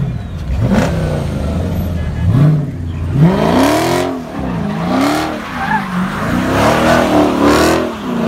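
Dodge Challenger engine revved hard again and again, its pitch rising and falling about once a second, as the car does a burnout with its rear tyres spinning in smoke near the end.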